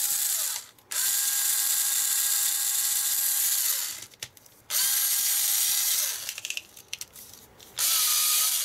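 Tack Life SDH13DC cordless electric screwdriver's motor running in several short bursts, each spinning up to a steady whine and winding down with a falling pitch as the trigger is released.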